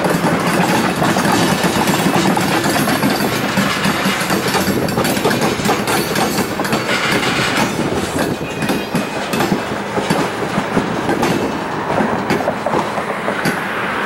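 Freight train of covered hopper cars rolling through a yard curve, steel wheels clicking and knocking over rail joints and a switch in an uneven clickety-clack.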